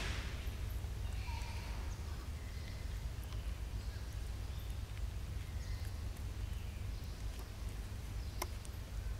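Outdoor ambience: a steady low rumble with short faint chirps and a few sharp clicks, one louder click about eight seconds in.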